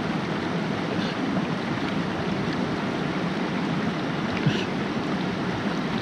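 Mountain stream water rushing steadily, an even hiss of flowing water all around. One light click about four and a half seconds in.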